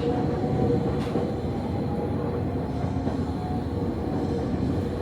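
Electric train of the Nankai Koya Line running between stations, heard from inside the carriage: a steady rumble of wheels and running gear with a faint steady hum.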